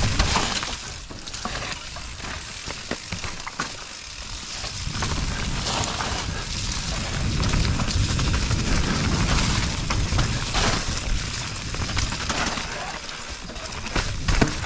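Mountain bike descending a wet, muddy dirt trail: tyres crackling and hissing through mud and leaves, with short rattles and knocks from the bike over bumps and a low rumble underneath.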